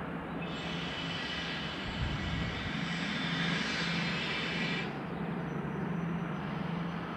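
Sylt Shuttle car-carrier flat wagons rolling past on curved track with a high hissing, squealing wheel noise that stops abruptly about five seconds in as the last wagon clears. A steady low engine hum runs underneath.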